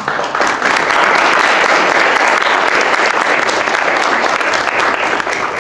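Audience applauding, a dense steady clapping that builds at once and tapers off near the end.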